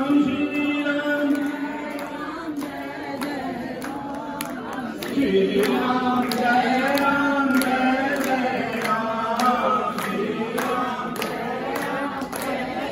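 A group of voices chanting a Hindu devotional chant together in long held notes, with a steady beat of sharp strokes keeping time.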